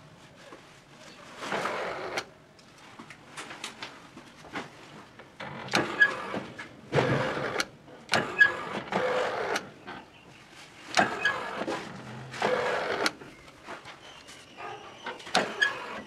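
Motorised sliding bolt of a homemade remote-controlled door lock, driven back and forth in several short runs, each under a second, with clicks as the bolt stops.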